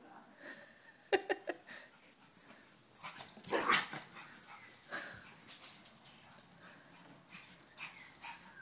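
Pug barking and yipping in short bursts, the loudest around three and a half seconds in, at an orthopaedic walking boot blocking the doorway.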